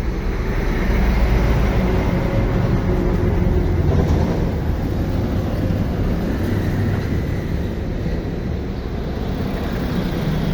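Steady low rumbling background noise with no distinct events, its energy mostly in the low end.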